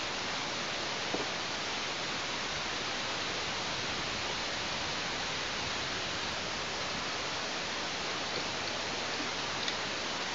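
Steady, even hiss with no pitched sounds in it, with a faint click about a second in and another near the end.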